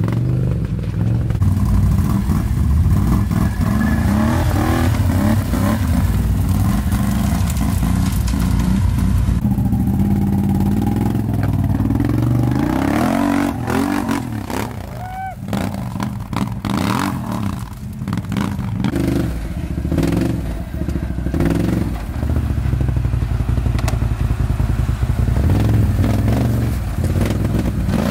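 Can-Am ATV engines revving up and down as the quads crawl over rocks and claw up a dirt bank, with stones and tyres clattering and knocking.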